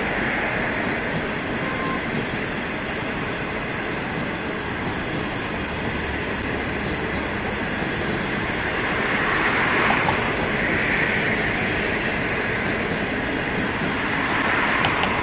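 Passenger coaches rolling past on the rails: a steady rumble and hiss of steel wheels on track, swelling about ten seconds in and again near the end.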